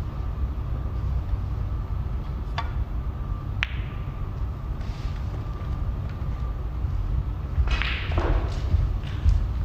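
Snooker shot: a sharp click of the cue striking the cue ball, then about a second later the click of the cue ball hitting an object ball, over a steady low hum. A brief rustle follows near the end.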